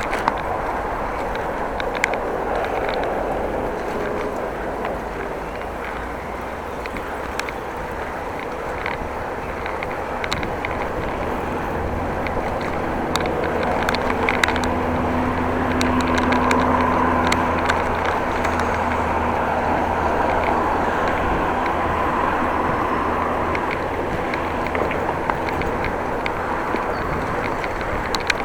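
Steady wind and road noise of a moving bicycle, with scattered light clicks and rattles. About halfway through, a motor vehicle's low engine hum rises and holds for several seconds, then fades.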